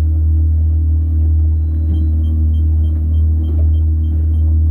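Kicker outboard motor running steadily, a constant low drone. About two seconds in, a string of short electronic beeps starts, about three a second.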